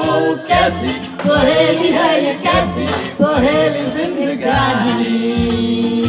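A woman singing into a handheld microphone over backing music with a low bass line and a regular beat.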